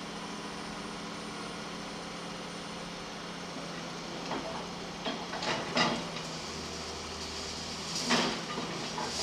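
Backhoe loader's diesel engine running steadily. In the second half come several sharp knocks and scrapes, a few spread over the middle and one loud one near the end, as the bucket works against the rod. The engine note deepens about two-thirds of the way in.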